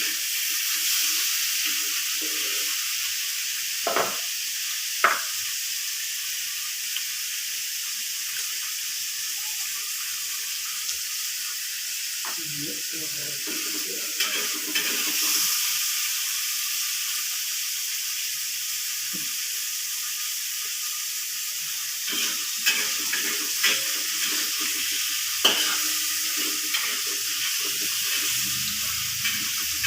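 Food frying in hot oil in a pan, a steady sizzle, with a utensil stirring and now and then knocking sharply against the pan, twice around four and five seconds in and several times past the middle.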